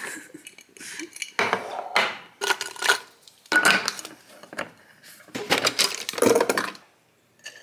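Nespresso Vertuo coffee capsules clinking and rattling against a glass storage jar as it is handled, in several separate bursts, the loudest about six seconds in.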